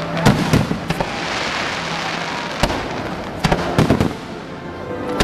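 Aerial fireworks bursting: a quick volley of sharp bangs in the first second, a single bang a little past halfway, then another rapid cluster, all over a steady crackling hiss.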